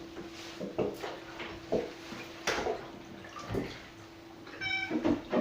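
Water splashing in short bursts as a cat is washed in a bath, over a steady hum, with one short meow from the cat near the end.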